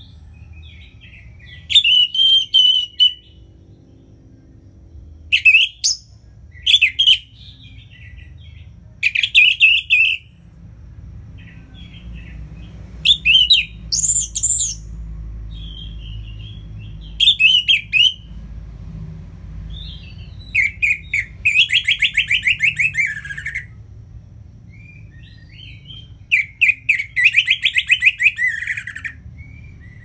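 Orange-headed thrush singing its full song in loud, varied whistled phrases separated by short pauses, the last two phrases long fast trills that fall in pitch.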